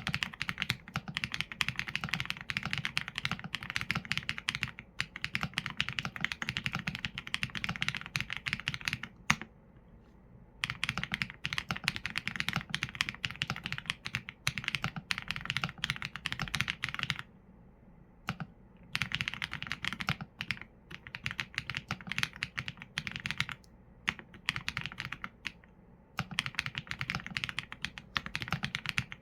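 Fast, steady typing on a mechanical keyboard with Leobog Graywood V4 linear switches and PBT keycaps, a dense run of key clacks broken by short pauses about a third and two thirds of the way through.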